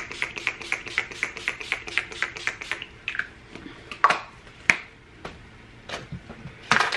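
A quick, even run of light clicks or taps, about four a second, for the first three seconds. These are followed by a few separate, sharper taps and a louder rustling click near the end.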